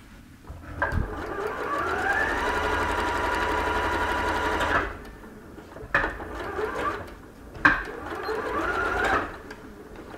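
Computerised sewing machine stitching a seam: the motor whines up to speed about a second in and runs steadily for a few seconds, stops, then runs again for a shorter stretch, with a couple of sharp clicks in between.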